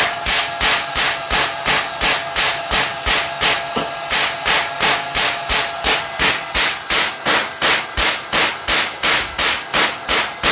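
Homemade propane pulse jet with plasma spark ignition firing in a steady rhythm of sharp bangs, about three a second, each pulse a spark igniting a charge of propane and air, over a faint steady whine.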